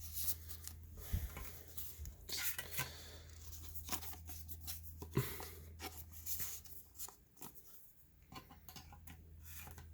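Pokémon trading cards being slid into plastic card sleeves and handled: scattered soft rustles and scrapes of card against plastic.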